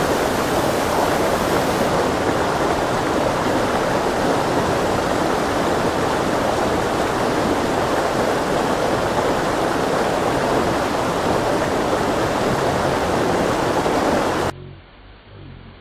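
Waterfall pouring: a loud, steady rush of falling water that cuts off suddenly about a second before the end.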